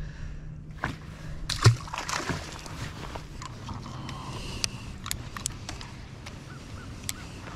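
Electric trolling motor on a bass boat humming steadily, with scattered clicks and knocks of handling on the boat. The loudest sound is a thump and a short splashy rush about a second and a half to two seconds in. The hum stops about six and a half seconds in.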